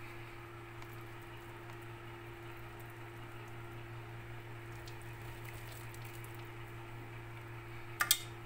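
A steady low hum with faint scattered light ticks, and a sharp knock about eight seconds in.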